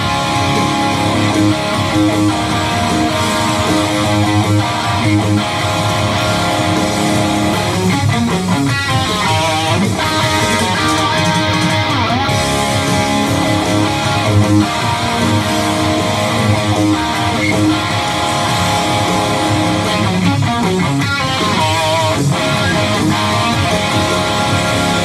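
Electric guitar played through an amplifier: sustained notes and chords ringing on, with wavering vibrato in places and a few sliding changes of pitch.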